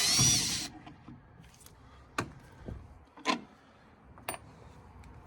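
Cordless power driver spinning out the last screw holding a furnace inducer, its motor whine stopping about half a second in. A few light clicks and knocks of the screw and parts being handled follow.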